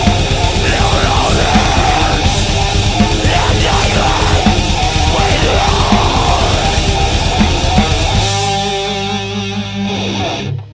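Heavy metal band recording: distorted guitars and drums play the closing bars of a song. About eight seconds in, the drums stop and a final guitar chord rings out and fades, cutting off just before the end.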